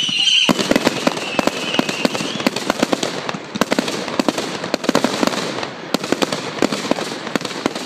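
Fireworks display: a high whistle cuts off about half a second in, then a dense run of sharp bangs and crackles from shells bursting into crackling stars.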